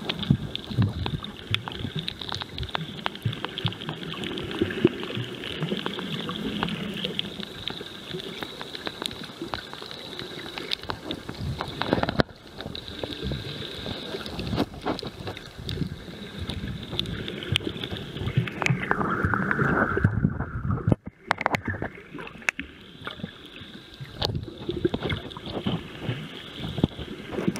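Underwater noise picked up by a snorkeler's camera: a continuous rushing and sloshing of water, full of small crackling clicks, with a steady high whine. The sound drops out almost to nothing for about a second, roughly twenty seconds in.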